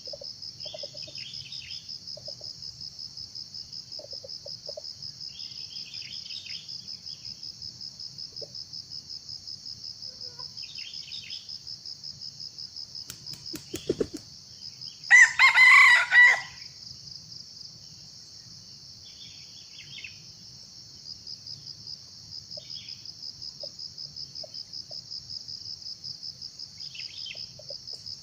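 A junglefowl rooster crows once, a loud call of about a second and a half, over a steady chorus of insects trilling in pulses several times a second. A couple of sharp clicks come just before the crow.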